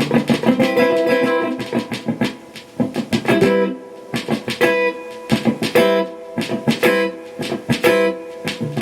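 Gibson Les Paul Standard electric guitar being played: a run of quickly picked notes, then chords struck about once a second and left to ring.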